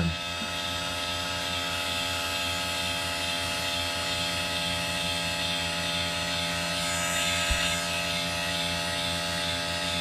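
RC foam-tire truing machine running steadily, its electric motor spinning the tire and the cutting bit with an even hum and whine over a hiss. A brief low knock comes about seven and a half seconds in.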